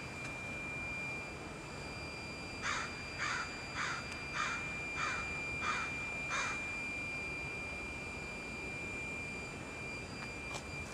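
A crow cawing seven times in an even series, about one and a half caws a second, over steady outdoor background noise with a faint high steady tone.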